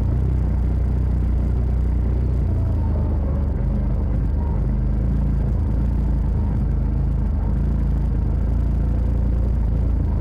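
Side-by-side UTV engine running steadily under way on a dirt trail, a deep low drone with little change in pitch.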